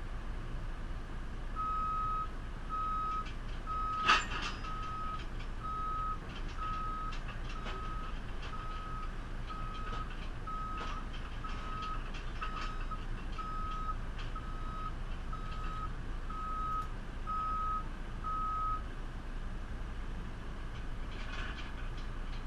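Reversing alarm on a digger, a single-pitched beep repeating about once a second and stopping near the end, over the steady low running of the machine's diesel engine. A sharp metallic knock comes about 4 seconds in, the loudest sound here.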